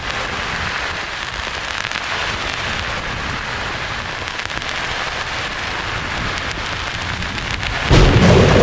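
Steady rain-like hiss of white noise, with a clap of thunder breaking in suddenly near the end, deep and louder than the hiss.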